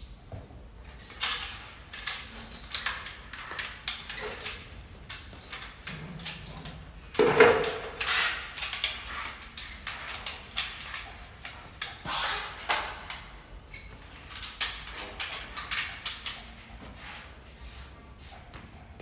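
Flat mop pushed and dragged across a tiled floor: a run of irregular swishes and scrapes, with one louder knock about seven seconds in.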